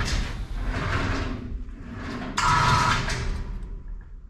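A gantry crane's hoist motor running in short bursts with a steady electric hum, once about two and a half seconds in, with rumbling and rattling between as a heavy A/C compressor is moved across.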